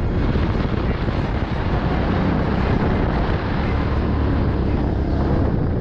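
Go-kart engine running at speed, with wind buffeting an onboard camera's microphone.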